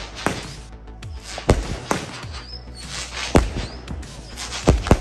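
Consumer aerial fireworks going off overhead: about six sharp bangs in five seconds as shells burst into gold sparks.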